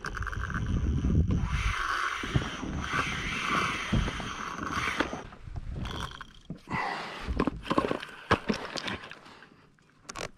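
Fishing rod and reel being handled aboard a kayak during a fight with a fish: scraping, rubbing and short knocks, with a steady hiss for about the first half.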